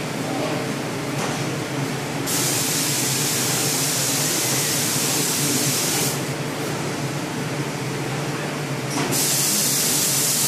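A loud, steady hiss in two spells, the first about four seconds long and the second starting about nine seconds in, over the constant hum of workshop machinery.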